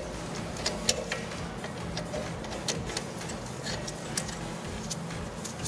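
Brake caliper piston wind-back tool being turned by hand, screwing a rear caliper's screw-type parking-brake piston back in: irregular light metallic clicks and ticks.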